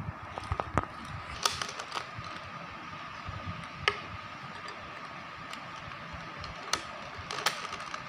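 Plastic 3x3 Rubik's cube being turned by hand: irregular clicks and clacks of the layers snapping round, a few sharper than the rest, over a faint steady hum.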